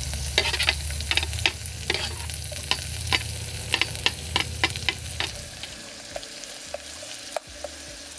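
Chopped green onion, chili, ginger, garlic and orange zest sizzling in hot vegetable oil in a saucepan while being stirred, with frequent sharp clicks of the stirring utensil against the pot.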